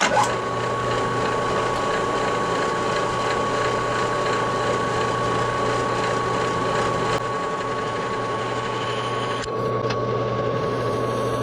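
A power tool's electric motor running steadily, with a constant high whine over a low hum; it starts abruptly and shifts slightly in tone about nine and a half seconds in.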